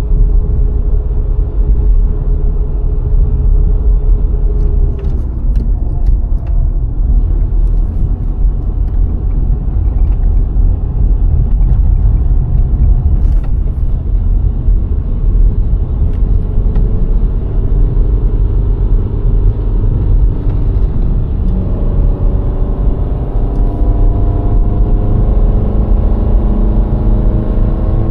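VW Golf IV 1.6's four-cylinder engine and the tyre and wind noise of a car on the road, a steady low rumble. In the last several seconds the engine note rises as the car accelerates.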